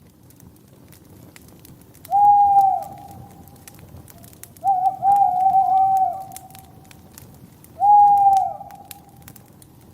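A bird hooting three times, each call a steady, slightly falling hoot, the middle one longer, over the soft crackling of a wood fire.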